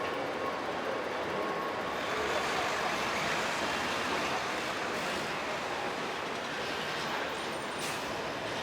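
Steady city traffic noise, an even rumble and hiss that swells slightly a couple of seconds in.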